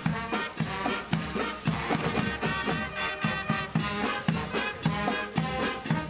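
Live brass marching band playing an upbeat tune: saxophones and brass over a steady drumbeat of about two beats a second.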